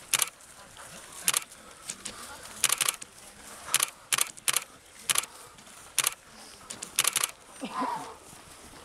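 Sharp, short clicks at irregular intervals, about one a second, some in quick runs of two or three, over a faint outdoor hiss; a brief voice sounds near the end.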